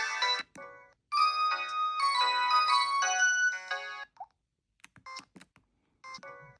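Samsung SGH-E890 mobile phone playing its ringtones one after another. A melody ends about half a second in, and a second tune plays for about three seconds. After a short pause with a few faint clicks, another tone plays briefly near the end.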